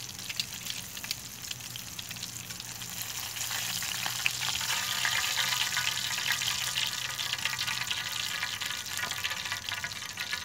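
Oil sizzling as a boga fish fillet fries in a stainless steel mess-tin pan. The sizzle grows louder about four seconds in.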